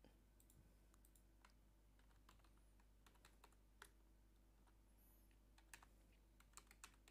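Faint computer keyboard keystrokes: a password being typed, single taps at first and a quicker run of keys near the end.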